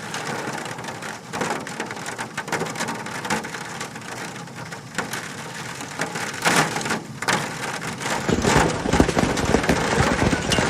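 Hailstones pelting a surface: a dense patter of sharp hits over a steady downpour. About eight seconds in, the hits grow louder and deeper.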